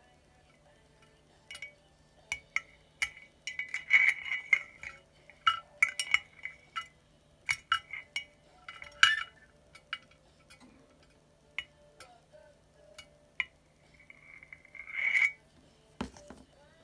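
Irregular light clinks and taps of plastic model parts knocking against the inside of a glass bottle as a Gunpla model is assembled inside it, some taps ringing briefly like glass. A longer scraping rattle comes near the end, followed by a dull thump.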